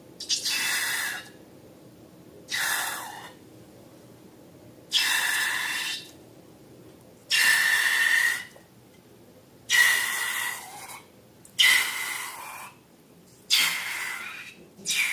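Seven short hissing rushes of air, each about a second long with a faint squeaky tone, coming roughly every two and a half seconds.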